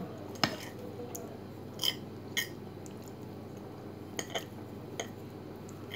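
Metal fork clinking and scraping on a plate while twirling spaghetti: about half a dozen light, separate clinks over a steady low hum.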